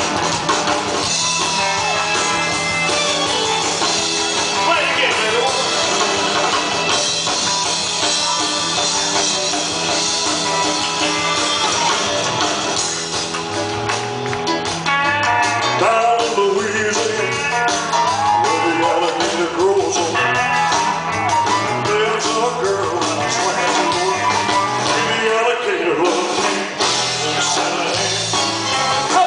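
Live rock and roll band playing, with electric guitar over a stepping bass line.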